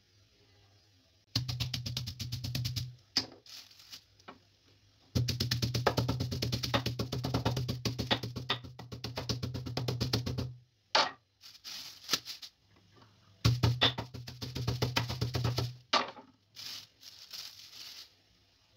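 Chicken breast inside a plastic bag being worked flat with a wooden rolling pin on a granite counter: three stretches of rapid, even knocking with a low rumble, the longest in the middle. Between them and near the end come a few separate crackles of the plastic bag being handled.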